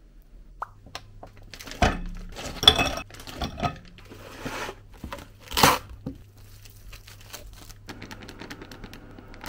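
Plastic food packaging rustling and being torn open by hand, with a few sharp clinks of dishes on a counter.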